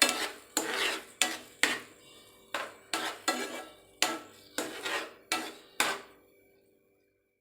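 A cooking utensil knocking against a pan while tossing fried bread pieces in sauce, about two sharp clanks a second, stopping about six seconds in.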